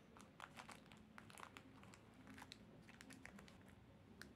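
Faint crinkling of a paper craft figure covered in clear tape as it is pressed and handled: a scatter of small crackles and ticks.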